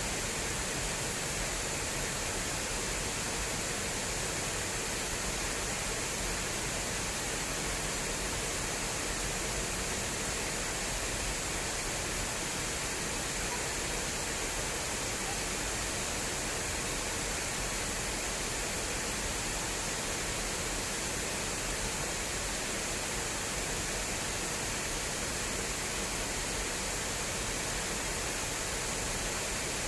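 Water rushing steadily through an irrigation channel: an even, unbroken hiss.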